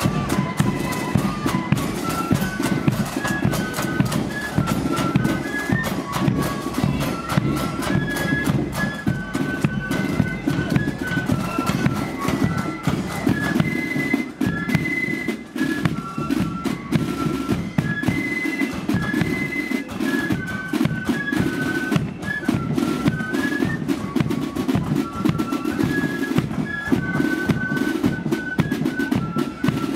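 Flute band playing a tune: the flutes carry the melody in unison over snare drums and a bass drum keeping a steady beat.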